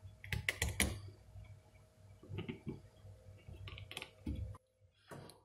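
Small hard clicks and taps of a 9-pin vacuum tube (a 6189, the same as a 12AU7) being worked into its socket on a circuit board. They come in short clusters: one in the first second, then others around two and a half and four seconds in.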